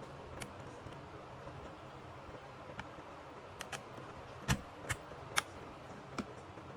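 Scattered clicks and light knocks of the steam iron's parts and small tools being handled as its boiler is unplugged and taken out, about eight in all, the loudest three close together a little past halfway, over a faint steady hum.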